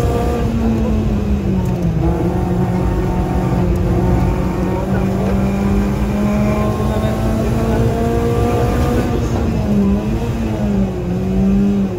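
Renault Clio 3 RS Group N rally car's 2.0-litre four-cylinder engine at high revs in fourth gear, heard from inside the cockpit. It eases off briefly, then pulls hard again toward about 7,300 rpm.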